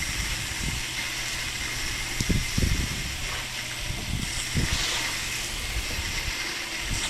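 Pressure-washing rig spraying cleaning formula onto a deck: a steady hiss of spray over a low machine hum, with a few dull low thumps.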